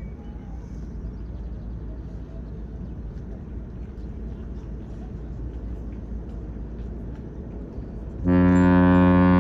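A low, even rumble of wind and harbour background, then near the end the cruise ship Renaissance's horn starts: a sudden, loud, deep steady blast with a rich stack of overtones, sounded as the ship leaves its berth.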